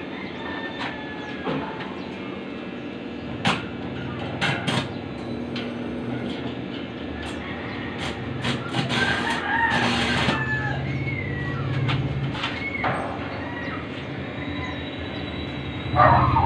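Roosters crowing in the background, with scattered sharp clicks and taps from work on a stainless steel gate. A louder burst of noise starts near the end.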